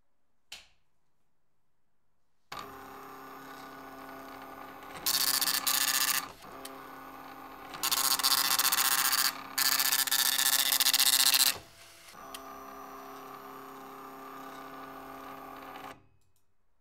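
Dot matrix printer printing two lines of text: a steady pitched motor hum, broken by three loud buzzing bursts as the print head fires across the paper. A click about half a second in; everything stops shortly before the end.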